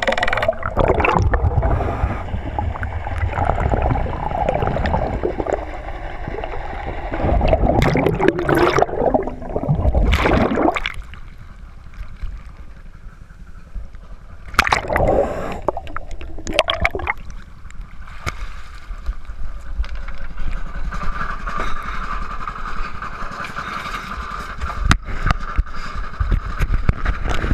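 Water gurgling and rushing around a diver's camera, with loud splashes around the middle as it breaks the surface beside a boat. Near the end a steadier hum runs under lapping water.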